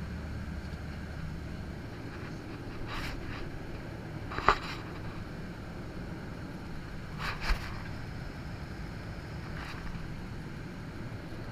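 Steady low rumble of an airliner cabin, with a few brief knocks and rustles; the sharpest is about halfway through.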